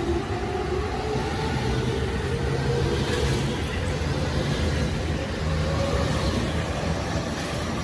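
E231 series electric commuter train pulling out and picking up speed: a faint electric motor whine rising slowly in pitch over a steady rumble of the cars rolling along the track.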